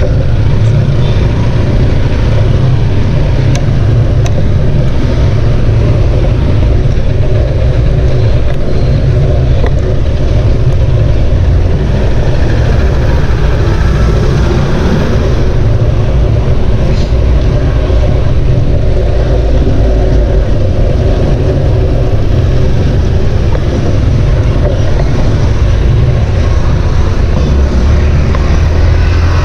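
Wind buffeting the microphone while riding a bicycle: a loud, steady low rumble.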